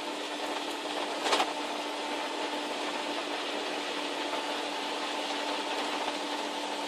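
Inside a car driving on a wet road: steady engine hum and tyre hiss. A brief louder sound comes about a second in.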